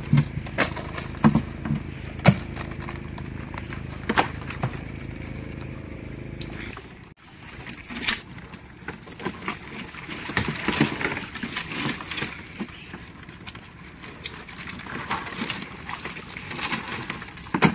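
Wet net crab traps being handled over a plastic crate and hauled up from the water by hand: rustling netting, small clicks and knocks, and water dripping and splashing. For the first seven seconds a steady low hum runs underneath, cut off abruptly.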